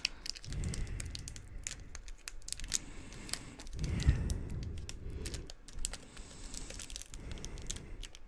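Foil booster-pack wrapper crinkling and tearing as it is worked open by hand, with scattered crackles and a few soft handling bumps.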